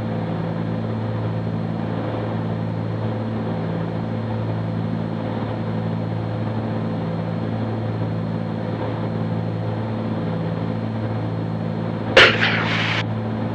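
Cabin drone of a Cessna 310Q's twin piston engines and propellers in flight, steady, with a slow regular throb about one and a half times a second from the two propellers turning slightly out of sync. A short burst of noise about 12 seconds in.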